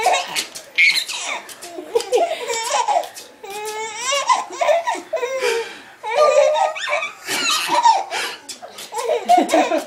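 Infant belly-laughing and giggling in repeated high-pitched fits, set off by being swung up and down in an adult's arms.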